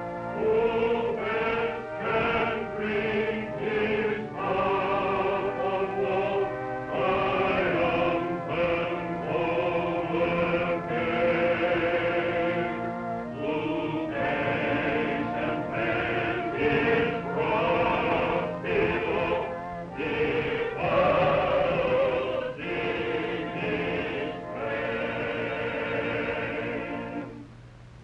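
A church congregation of men and women singing a hymn together, with a brief dip in the singing near the end.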